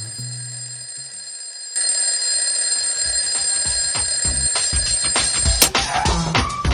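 A steady high-pitched ringing tone of several held pitches, with a run of dull low thuds starting about two seconds in; the ringing stops near the end.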